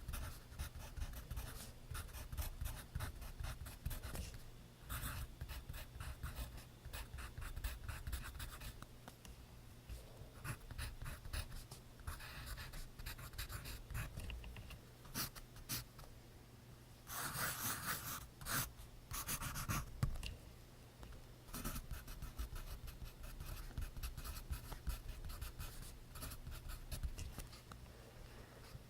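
Pencil writing on paper: a continuous stream of quick, scratchy strokes, with a denser, louder stretch about seventeen seconds in.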